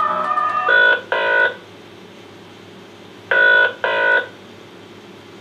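Guitar hold music cuts off, then a telephone ringing tone sounds twice, each ring a quick double pulse, about two and a half seconds apart. It is the ringing a caller hears while waiting to be put through to an operator.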